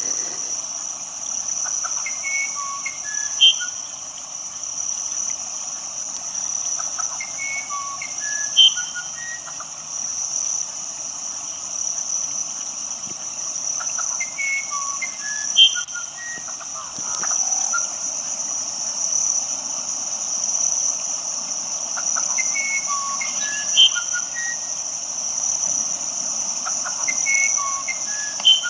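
Nature ambience: a steady, high-pitched insect chorus over a soft hiss of running water, with a short animal call of a few descending notes repeating five times, each opening on a sharp loud note.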